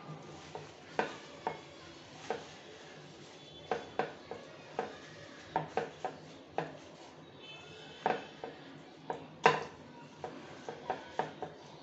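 Irregular light knocks and taps against a ceramic dish, with paper towel rustling, as raw beef steaks are pressed and blotted dry. The loudest knock comes about nine and a half seconds in.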